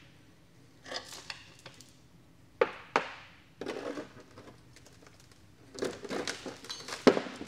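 Geared engine stand being hand-cranked to roll a 1275cc A-Series engine block over. Scattered, irregular clunks and clicks, with a sharp knock a little over two and a half seconds in and a run of knocks near the end.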